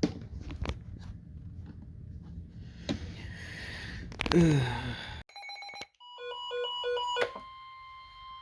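Emergency alert tones: about five seconds in, a rapid run of pulsing electronic beeps at several pitches, then a steady high-pitched attention tone. Before the beeps there are only a few light clicks over room noise.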